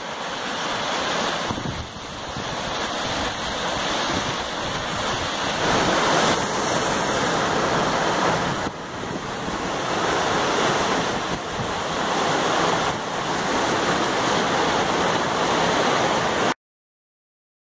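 Loud, steady rush of a river in full flood, fast brown water churning and surging over its banks; it cuts off suddenly near the end.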